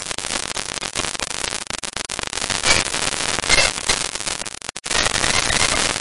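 Digital glitch sound effect: harsh, crackling static with stuttering bursts of noise, which cuts out for a moment almost five seconds in.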